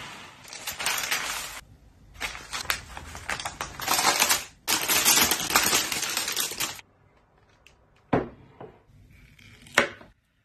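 Baking paper crinkling and rustling with dense crackles in three long stretches as the sponge cake in its square metal ring is turned over onto a wire cooling rack. Two sharp knocks follow near the end.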